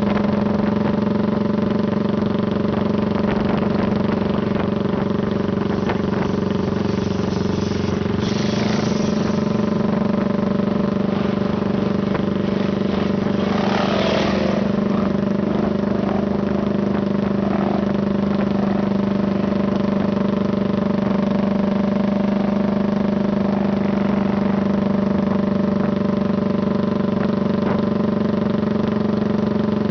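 Motorcycle engine running steadily at cruising speed, heard from on the moving bike. Another motorcycle revs up briefly about eight seconds in, and again about halfway through as a bike alongside pulls a wheelie.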